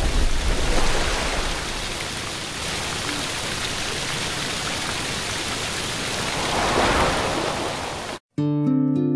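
Logo sound effect: a steady rushing noise, with a deep rumble for the first two seconds and a swell near the end, that cuts off abruptly. After a moment of silence an acoustic guitar starts playing.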